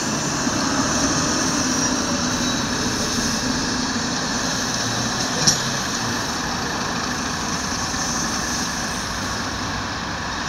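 Steady background rumble and hiss with no clear pitch, and one short sharp click about halfway through.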